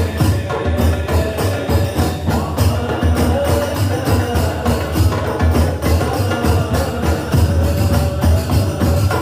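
A hadroh ensemble of rebana frame drums and a bass drum plays a fast, dense rhythm for a qosidah, with deep bass thumps under it. Voices sing along.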